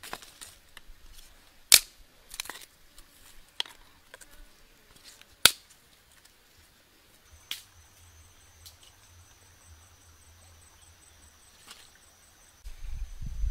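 Dry sticks snapping and clacking as they are broken and laid over charcoal in a three-stone fire pit: a few scattered sharp cracks, the loudest about two seconds and five and a half seconds in. A low rumble comes in near the end.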